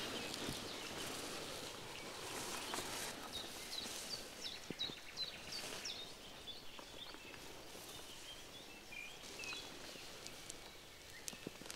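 A small bird singing a run of short, quick, high chirps between about three and six seconds in, with fainter calls later, over a steady outdoor hiss.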